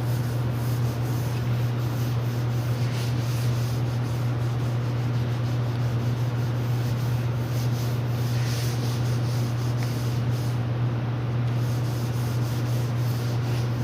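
400-grit wet sandpaper rubbing over 2K primer on a car body, in repeated back-and-forth strokes, over a constant low hum. The sanding is prep to leave the primer smooth for the base coat.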